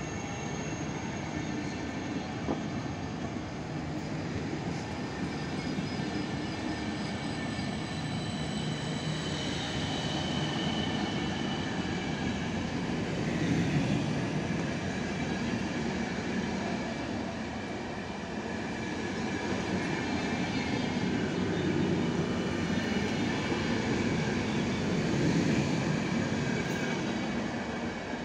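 PKP Intercity passenger coaches rolling past, a steady rumble of wheels on the rails with thin high squeals at times in the first half. The sound falls away as the last coach goes by near the end.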